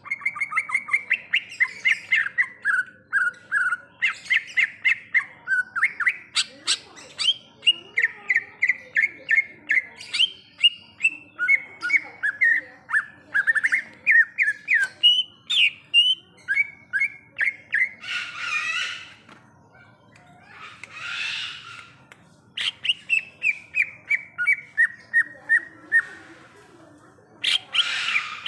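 Cucak ijo (green leafbird) singing: fast chattering runs of short repeated notes, several a second, many stepping down in pitch. About two-thirds of the way in, and again near the end, the runs are broken by harsh raspy bursts.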